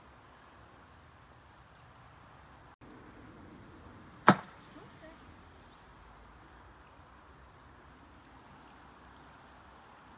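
Faint steady rush of a flowing river, with one sharp knock about four seconds in and a few faint high bird chirps.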